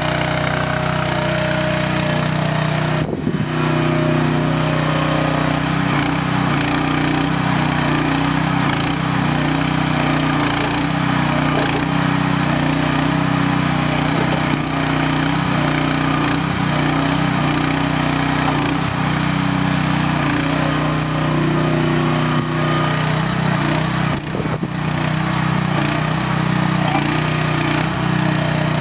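MIVA VA13 mini excavator's small engine running steadily as the machine travels on its tracks and works its boom. Its note shifts a little now and then, with two brief dips, about three seconds in and again near the end.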